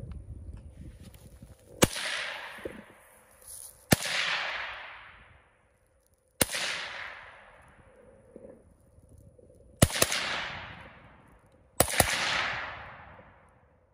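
Rifle being fired: shots spaced about two to three seconds apart, the last two coming as quick doubles. Each shot is followed by a long echo that fades over a second or more.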